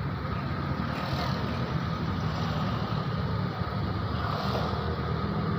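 Vehicle engines in slow, jammed traffic: a steady low rumble with a faint steady whine.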